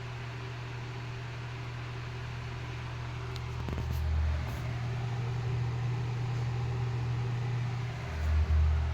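Small two-speed electric table fan with a plastic blade running on high speed: a steady motor hum and the whoosh of moving air. Two louder low rumbles swell up about four seconds in and again near the end.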